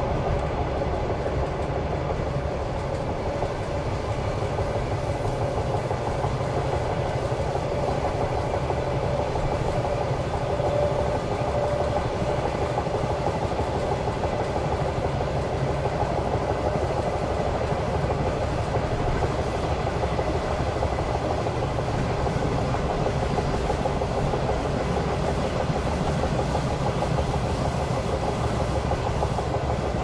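A moving train running steadily on the rails, its wheels clattering at an even level throughout.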